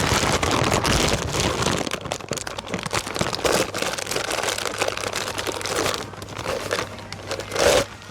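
Steady crinkling and rustling of something being handled, with a louder knock near the end.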